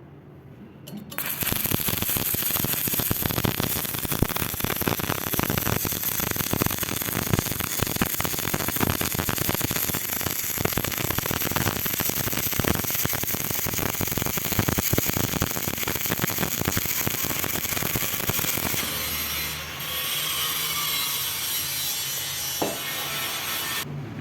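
Stick (arc) welding: the arc gives a dense, steady crackle that starts about a second in and cuts off abruptly near the end.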